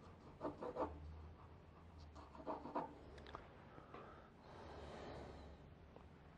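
Faint graphite pencil on drawing paper: two quick flurries of short strokes about two seconds apart, then a soft rustle near the end.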